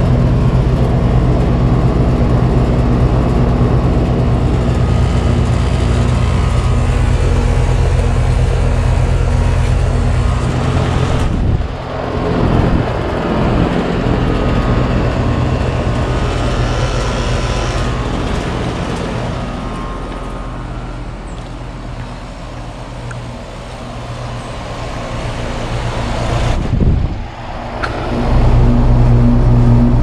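Rheem Value heat pump outdoor units running in heat mode: a steady electrical hum from the compressor under the whoosh of the condenser fan. The sound breaks off briefly twice and is softer for a few seconds in the middle.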